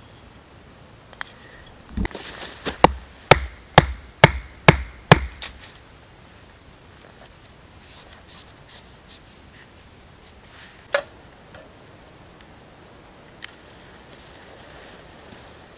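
A carved wooden tent stake being knocked into the ground: a run of about eight sharp wooden blows, roughly two a second. Later comes one lighter knock.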